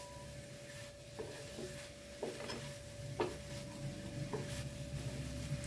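Wooden spatula stirring and scraping grated coconut and sugar in a nonstick pan: a series of short, irregular scrapes and taps over a faint sizzle, as the mixture cooks down dry and the sugar melts in.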